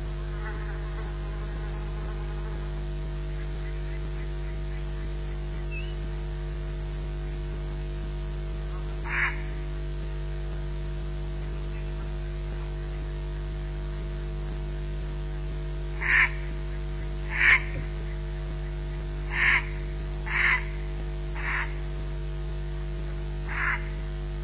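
Corvids cawing: seven short, harsh caws, one about nine seconds in and six more spread through the second half, over a steady electrical mains hum on the nest-camera feed.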